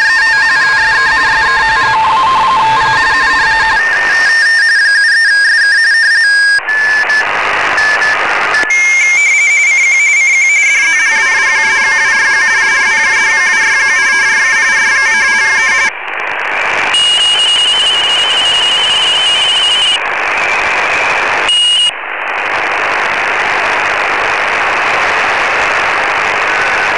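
Shortwave receiver audio from the 20-metre RTTY segment: radioteletype signals warbling rapidly between two close tones over band hiss, later mostly hiss with one steady tone. The audio cuts out briefly several times as the receiver is stepped to a new frequency.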